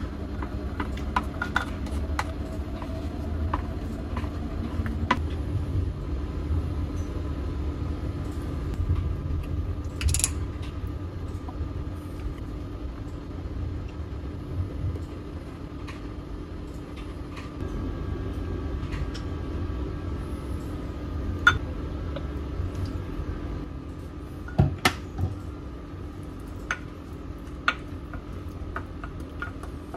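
Kitchen prep sounds: a wooden spoon scraping and tapping against a small glass bowl, with scattered light clinks as seasonings and sauces go in and are stirred, over a steady low hum.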